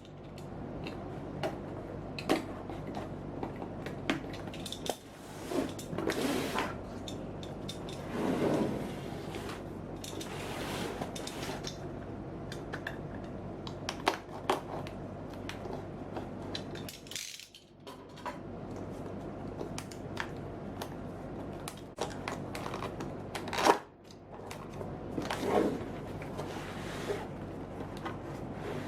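Laptop box and packaging being handled during unboxing: rustling, scattered clicks and knocks over a steady low hum, with one sharp knock about three quarters of the way through.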